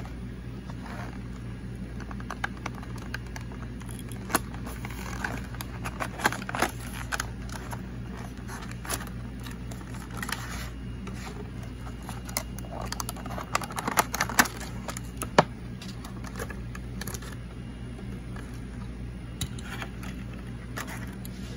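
A diecast toy's clear plastic blister pack being pried off its card and handled: scattered crinkles, clicks and scrapes of stiff plastic, busiest in the middle. A steady low hum runs underneath.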